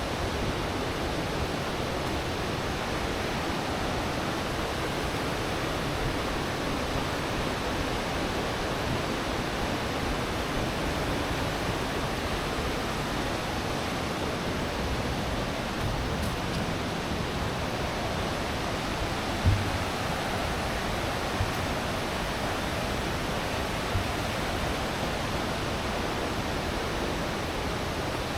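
Steady, even rushing noise with no pitch or rhythm, and a faint low thump about two-thirds of the way through.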